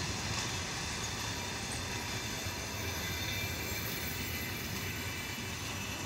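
Passenger coaches rolling past on steel wheels, a steady rumble and hiss of wheels on rail that slowly fades as the train moves away.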